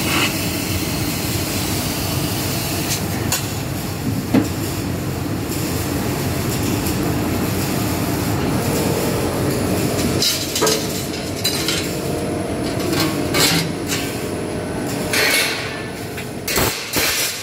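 Fiber laser cutting machine running: a steady machine noise, with a few sharp clicks and knocks and a spell of clatter in the second half.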